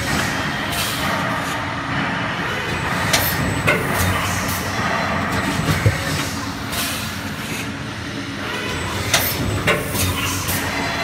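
High-speed injection moulding machine with its in-mould labelling robot running production cycles: steady machine running noise broken by sharp clacks and short hissing bursts every few seconds.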